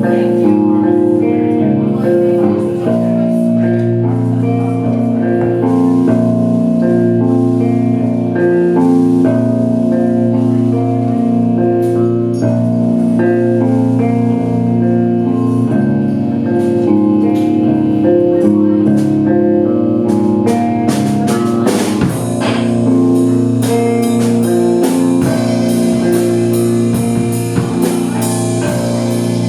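A band playing, with guitar notes over drums; the drums and cymbals get busier about twenty seconds in.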